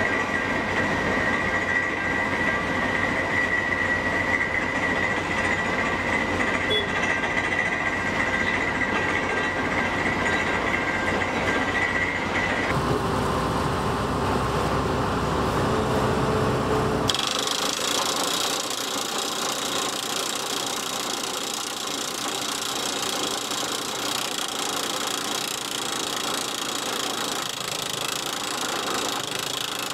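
Comacchio MC 12 crawler drill rig running and driving a self-drilling hollow bar into a shotcrete wall with its drill head: a dense, steady mechanical clatter, with a high whine over the first part. The sound changes abruptly twice, a little under halfway through and again just past halfway.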